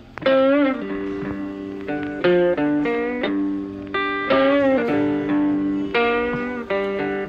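Background music: plucked guitar notes, a few of them bent in pitch, over lower held notes.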